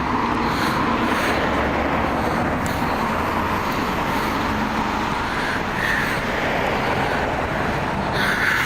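Steady road-traffic noise, an even wash of sound with no clear breaks.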